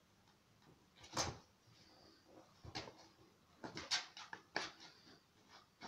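A kitten's paws and claws scrabbling and scratching at a cardboard box, a few short scrapes and bumps separated by quiet.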